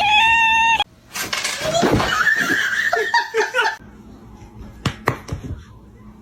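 A cat's long sliding meow, cut off abruptly about a second in, followed by a few seconds of human laughter. Near the end there are two quick, sharp smacks, a fraction of a second apart.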